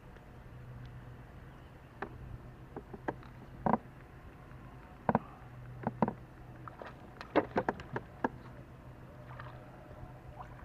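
A fishing boat's steady low hum, with scattered sharp clicks and knocks, several close together a little past the middle.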